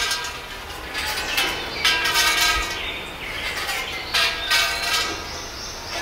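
A large hanging cluster of long tubes knocking together like a giant wind chime, ringing at many overlapping pitches in clusters of strikes that fade between gusts.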